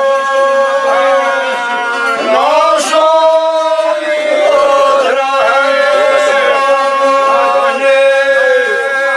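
A group of men singing a traditional Bosnian village song. Their voices hold one steady droning note throughout, while a wavering, ornamented voice rises and falls above it.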